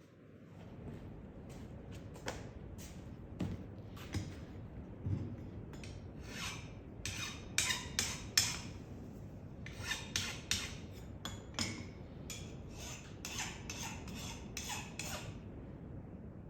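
A file scraping across the steel axe head in a series of short, irregular strokes, a couple a second, with a pause in the middle.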